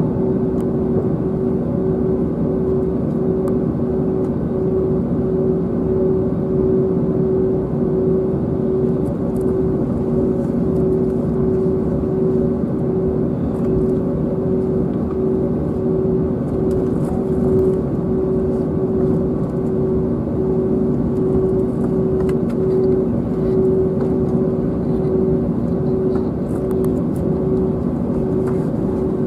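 Cabin noise of an Airbus A321neo taxiing, heard from a seat over the wing: a steady low rumble from its Pratt & Whitney PW1100G geared turbofans at taxi power, with an even, steady hum over it.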